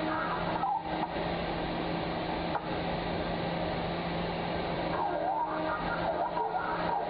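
Steady underground mining machinery noise: an even rumble with a constant low hum, joined by a few wavering higher tones about five seconds in.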